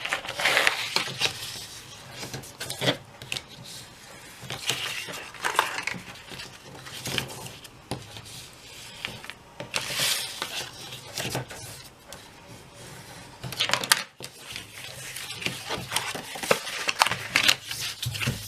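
Scored paper box template being folded and creased by hand: irregular crinkles, rustles and light taps of paper on the work surface.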